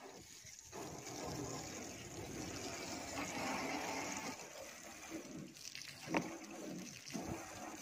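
Water from a garden hose spraying and splashing onto a car's bodywork, starting about a second in and easing off after about five seconds. A single sharp knock about six seconds in.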